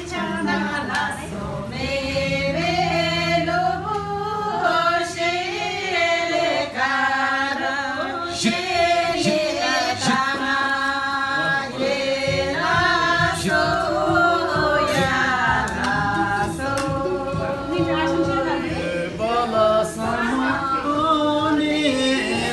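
A group of men and women singing a song together without instruments, with long held notes that glide from one to the next.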